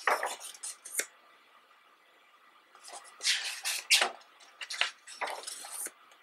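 Pages of a photo book being turned by hand, the paper swishing and rustling in a burst at the start and again, longer, from about three to six seconds in.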